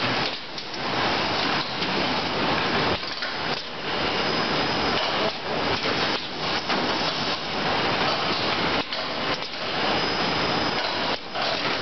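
Cucumber trolley unloading machine running: plastic crates rattling and clattering on roller conveyors and handling gear, a dense steady clatter with a few brief lulls.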